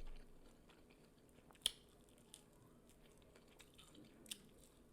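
Faint chewing of dry corn, with a few soft mouth clicks, one sharper click about a second and a half in.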